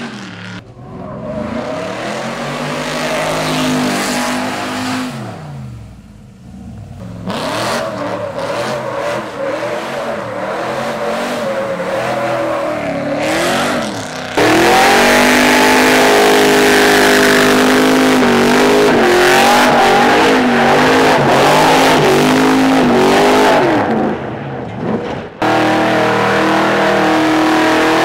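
Chevy pickup's ZZ572 big-block V8 revving and accelerating hard, in several short clips cut together, its pitch rising and falling. From about halfway the engine is held near full throttle, louder and more sustained.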